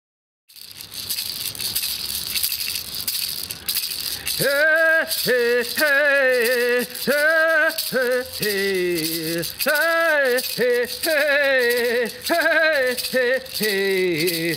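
A maracá hand rattle shaken continuously. From about four seconds in, a voice sings a chant over it in short phrases of wavering pitch.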